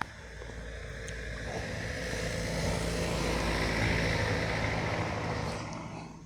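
A vehicle passing by: a rush of noise that swells to a peak about four seconds in and fades away.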